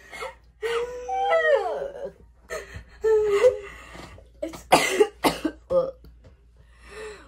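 Girls trying not to laugh with water in their mouths: muffled, closed-mouth squeals that slide in pitch, then a burst of coughing and spluttering about five seconds in.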